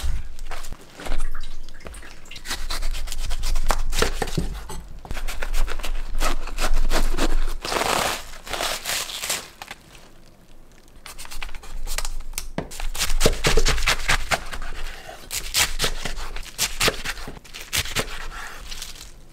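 Fresh napa cabbage crunching and snapping as its leaves are torn off and the head is pulled apart by hand, then a knife cutting through the crisp cabbage onto a wooden cutting board in a run of quick strokes near the end.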